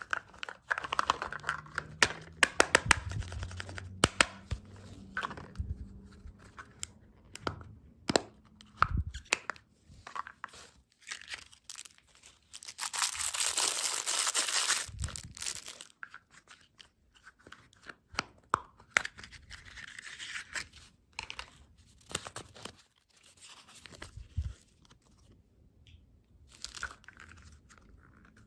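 Snack packaging being torn open and crinkled close to the microphone, with scattered sharp clicks and rustles. The loudest tearing lasts about three seconds around the middle.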